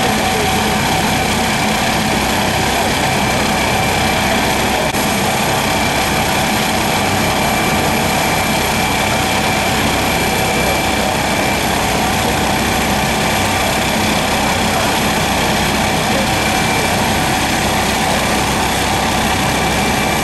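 London's Air Ambulance MD 902 Explorer helicopter running on the ground with its rotor turning, ready for take-off. Its turbines give a steady high whine over a loud, even rush of rotor and engine noise.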